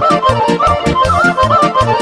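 Serbian kolo dance tune: a frula, a wooden shepherd's flute, plays a fast, ornamented melody over a band accompaniment with a steady, quick dance beat.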